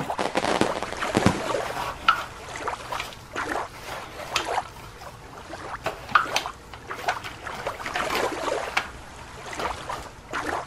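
Irregular scraping, rustling and clicking of plastic toys being worked through sand, with a wash of water noise in the first couple of seconds.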